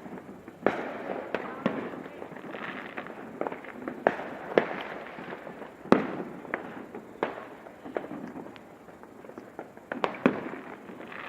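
Fireworks and firecrackers going off, more than a dozen sharp bangs at irregular intervals over a continuous background crackle, the loudest about six seconds in.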